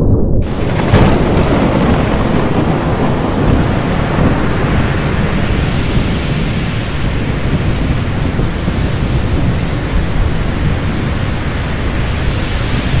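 Thunderstorm sound effect: a steady rush of rain with deep rumbling thunder. It comes in sharply just after the start and swells about a second in.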